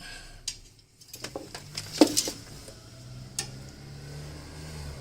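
Metal clinks and light knocks of hand tools and battery-cable hardware being handled, with one sharper clank about two seconds in. A faint low hum runs underneath from about a second in.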